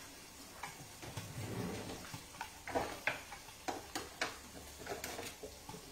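Salmon steaks frying under the lid of a griddle: irregular light ticks and pops of spitting fat, about two a second.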